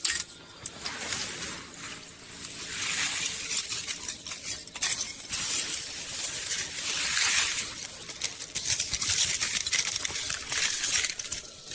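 Rushing, splashing water: a crackly hiss that swells and fades in slow surges every couple of seconds, like sea spray and breaking waves.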